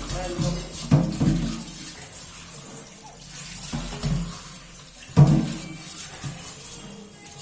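Water running from a tap into a sink, with knocks and clatter of things being handled about a second in and again, louder, about five seconds in.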